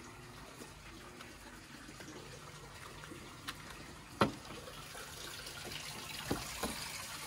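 A sharp click about four seconds in as a wooden gate's latch is worked, then two softer knocks, over a faint steady trickle of running water.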